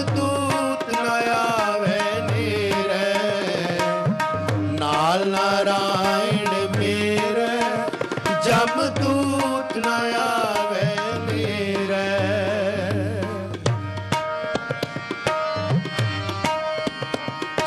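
Sikh shabad kirtan: a ragi sings an ornamented, wavering melodic line over held harmonium notes, with tabla playing a steady rhythm. About three-quarters of the way through the voice drops out, leaving harmonium and tabla.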